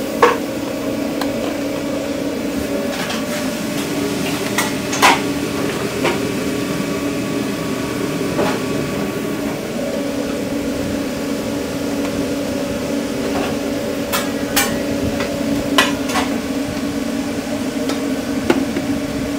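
Kitchen work in a food truck: a steady hum of running equipment, with sharp knocks and clatter of utensils and containers every few seconds, several close together about two-thirds of the way in.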